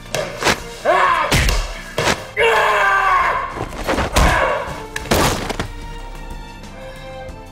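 Fight-scene sound effects: about five punch and body-blow thuds, with a man's shouts and grunts between them, over background music. From about six seconds in, only the music carries on.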